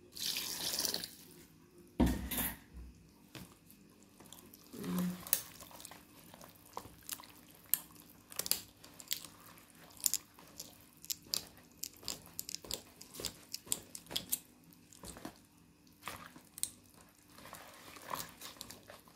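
Wire balloon whisk beating thick, lumpy flour batter for martabak manis in a bowl by hand: wet slaps and quick, irregular clicks of the wires against the bowl. It opens with water being poured into the batter, and there is a thump about two seconds in.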